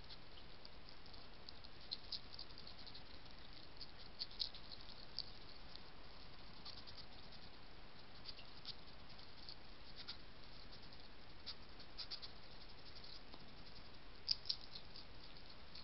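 European hedgehog foraging and chewing food on the ground: scattered small crunching clicks over a steady faint hiss, with two louder clicks near the end.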